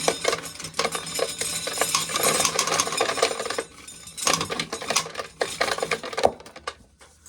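Corn being shelled: a dense clatter of hard dried kernels rattling and clicking. It eases briefly about four seconds in, picks up again, then dies away near the end.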